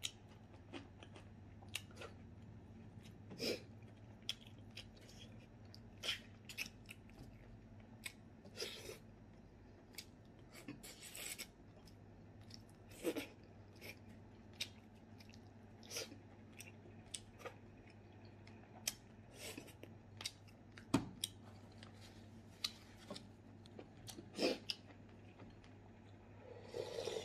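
A person chewing and smacking on grilled fish and rice, in short wet clicks every second or so. Near the end comes a longer slurp of broth from a coconut-shell bowl.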